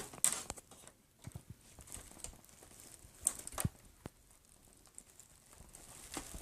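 Scattered clicks, taps and scraping of an Xbox 360's plastic casing and metal shielding being handled and pried at with a screwdriver, working at a clip that won't unhook. A few sharp clicks stand out, the loudest about three seconds in.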